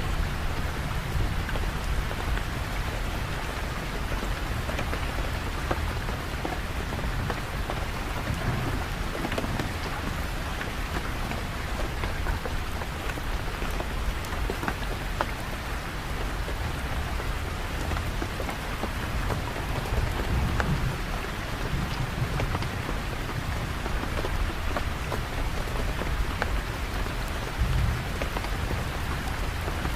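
Steady rain falling, with low rumbles of thunder swelling up a few times.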